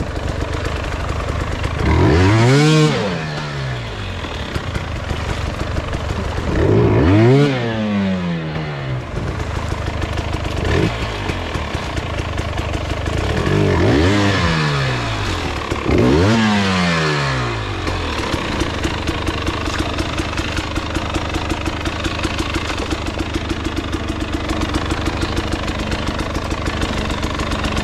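Dirt bike engine running at a fast idle, blipped sharply several times in the first eighteen seconds, each rev rising quickly and falling back, then settling into a steady, even idle.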